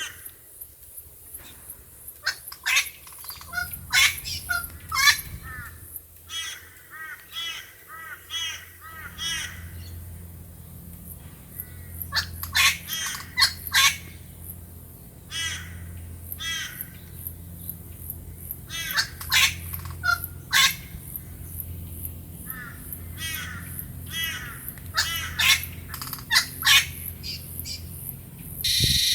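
Wild birds calling, with many short, sharp calls repeating in quick runs, over a low steady hum. Near the end a different, steady sound cuts in abruptly.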